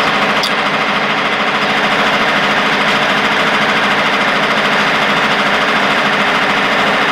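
A loud, steady, fast mechanical rattle that holds without a break.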